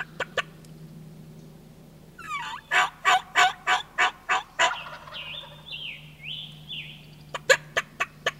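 Turkey calling: a loud series of about eight notes at roughly three a second, followed by a bird's repeated falling whistles. A few sharp, very short notes come just before the end.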